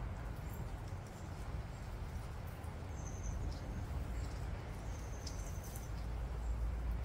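Aldabra tortoises biting and chewing freshly cut grass, a scatter of small crisp tearing clicks, over a steady low rumble. A few short high bird chirps come in about three and five seconds in.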